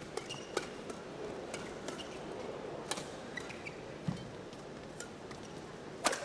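Badminton rally: a shuttlecock struck back and forth by rackets, sharp hits at uneven intervals of a second or more, the loudest just before the end, over a low steady arena background.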